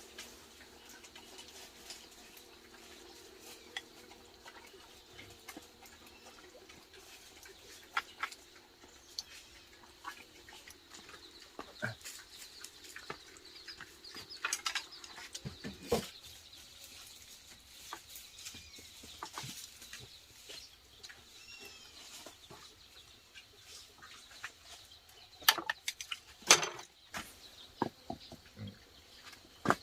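Domestic chickens clucking, amid scattered sharp clicks and knocks, with a cluster of louder knocks a little before the end.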